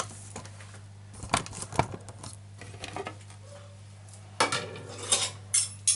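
A plastic bowl and the plate covering it knock and clatter on a kitchen counter as the lid is lifted off microwaved salmon. There are a few light knocks, then louder clatter in the last second and a half.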